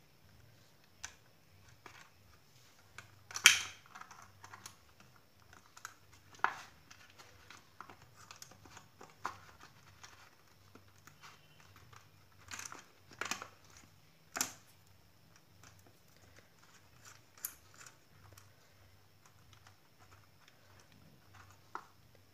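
Hands working insulated copper wires into the screw terminals of a switchboard's plastic socket and switch plate, making faint scattered clicks, taps and rustles. The sharpest click is about three and a half seconds in, and a cluster follows between about twelve and fifteen seconds.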